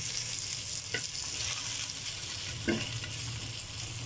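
Halved kakrol (spiny gourd) pieces sizzling steadily in oil in a frying pan as a metal spatula turns them, with two short clicks of the spatula against the pan, about one second in and near the end.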